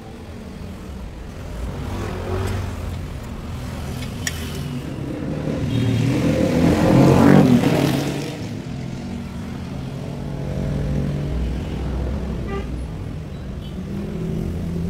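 A motor vehicle's engine running, swelling to its loudest about seven seconds in and then fading back, like a vehicle passing by.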